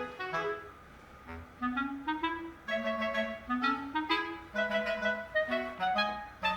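Background music: a light, bouncy tune of short, quick notes, with a brief lull about a second in.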